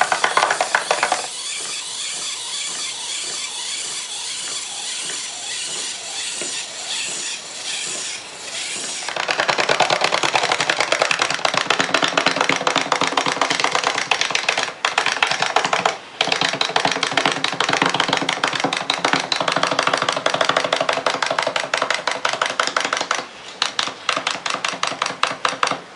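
Clockwork wind-up toys clicking and rattling as they walk across a tabletop, a fast, even clatter that gets louder about nine seconds in.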